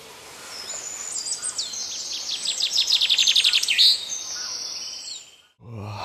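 Songbirds singing: high whistled notes, then one bird's fast trill of many even notes ending in a downward flourish about four seconds in, with other calls after it. The birdsong fades in and stops abruptly shortly before the end.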